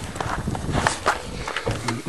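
Footsteps: a run of irregular scuffing steps with light knocks.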